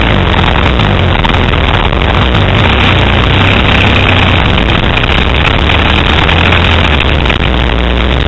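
Dirt bike engine running steadily and loudly while riding, heard from an onboard camera with heavy wind rumble over the microphone.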